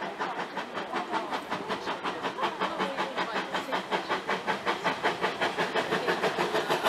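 Exhaust beats of the two-cylinder GWR 5101 Class 'Large Prairie' tank engine working steam as it approaches. The beats are steady, about five a second, and grow louder.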